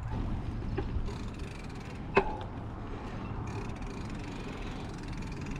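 Bicycle rolling along a concrete trail: a steady low rumble with light rattling, and one sharp click about two seconds in.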